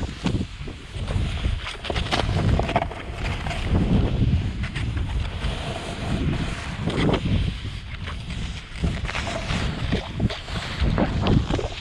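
Wind buffeting a pole-mounted action camera's microphone together with a snowboard hissing and spraying through deep powder snow, the rush swelling and fading every second or two.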